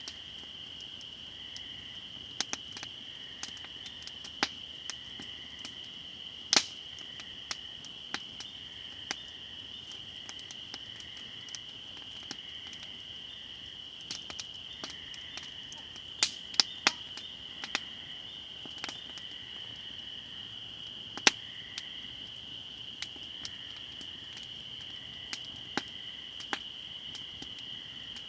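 A chorus of spring peepers calls steadily in high peeps, with a fainter call pulsing about once a second beneath it. An open fire crackles over the chorus in sharp, irregular pops, the loudest a few seconds apart.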